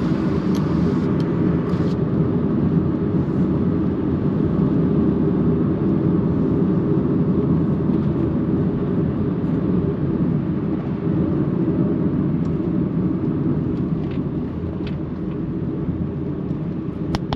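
A car driving along: a steady low rumble of engine and tyre noise.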